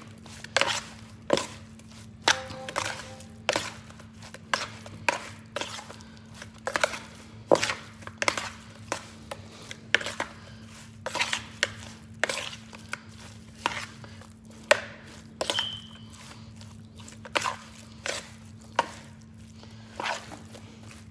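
Seasoned raw chicken breast pieces being worked and tossed by hand in a bowl: irregular knocks and slaps, about one or two a second, over a steady low hum.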